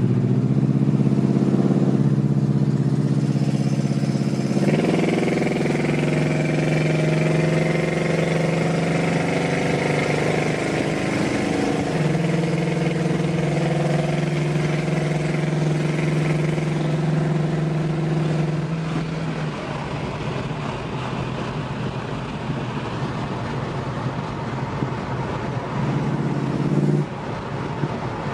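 1979 Pontiac Trans Am's 403 V8 with Flowtech and Magnaflow exhaust, heard from inside the cabin while driving. The engine note steps up about five seconds in and eases after about nineteen seconds, leaving mostly road and wind noise, with a short return of the engine note a little before the end.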